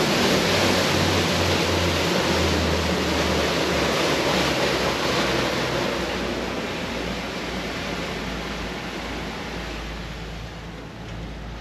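Wind and water rushing past a Sea Hunt boat under way, with a low engine hum early on, all of it fading gradually as the boat slows down.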